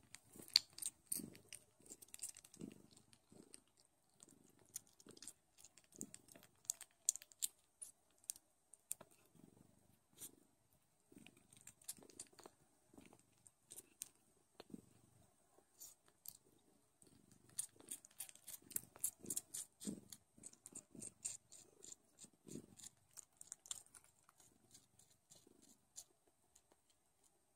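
Newborn Don Sphynx kittens suckling at their mother: a run of wet smacking, clicking sucks that comes in clusters. Under it is a low purr that swells and fades about once a second.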